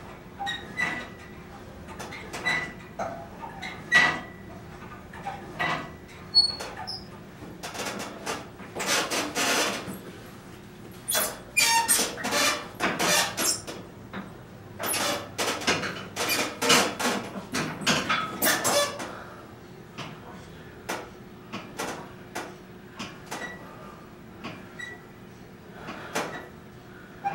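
Cable-and-pulley home gym squeaking and clicking with each repetition. About eight seconds in comes a run of louder knocks and rustling lasting about ten seconds, then the regular squeaks resume.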